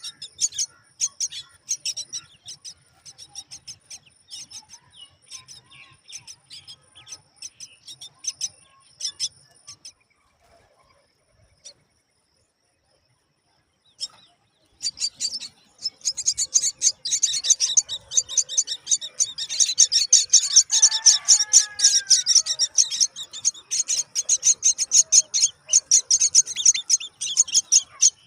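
Myna nestlings giving rapid, high-pitched begging chirps. They fall silent for a few seconds near the middle, then start up again louder and almost without pause as they are fed.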